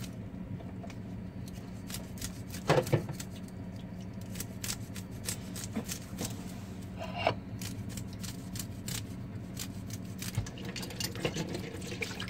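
Scales being scraped off a milkfish (bangus) with a blade in a metal sink: quick irregular scraping clicks, with two louder clatters about three and seven seconds in, over a steady low hum.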